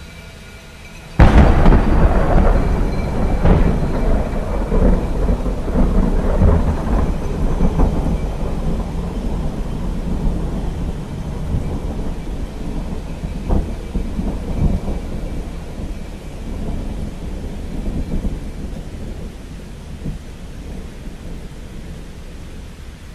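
Thunder: a sudden loud clap about a second in, then long rolling rumbles with a few more cracks, slowly dying away.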